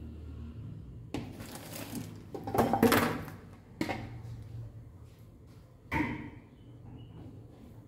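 Steel bowl and plate being moved about on a stone kitchen counter: a stretch of clatter and scraping, loudest about three seconds in, then a sharp knock near six seconds, over a low steady hum.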